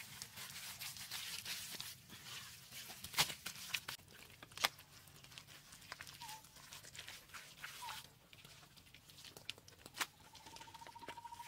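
Wet mud-and-straw plaster being pressed and smeared by hand onto a wall: a scratchy, squishy rubbing with a few sharp slaps of the wet clay. Two short chirps come near the middle, and a thin steady whistle starts near the end.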